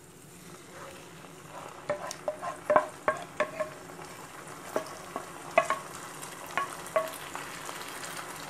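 Thick white sauce being poured and scraped out of a pan into a hot kadhai of lightly fried vegetables, with a low sizzle and a series of short ringing clinks of utensil against pan.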